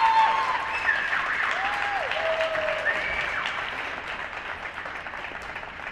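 Rink audience applauding, the clapping slowly thinning out, with a few shouted cheers over it in the first few seconds.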